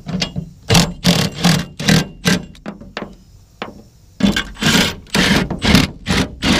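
Compressed air blasting from an air blow gun in about a dozen short hissing bursts, in two groups with a pause of about a second and a half between them, blowing out a freshly tapped bolt hole.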